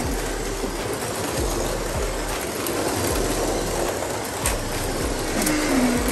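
1/24 scale Carrera Digital slot cars running on a plastic track: a steady whirring of small electric motors and wheels, with a few clicks and a falling whine near the end as a car slows.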